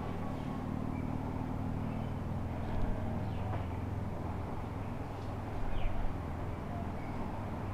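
Steady low mechanical hum, like an engine or motor running, with a few faint short high chirps over it.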